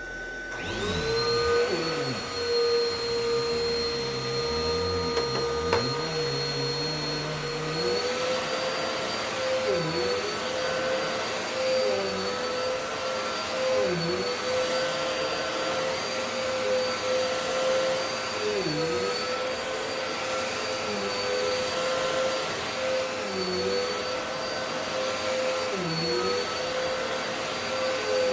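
Dirt Devil Multi-Surface Rewind upright vacuum cleaner running. Its motor spins up to a steady whine at the start, and there is one sharp click about six seconds in. From about eight seconds on, the whine dips briefly every couple of seconds.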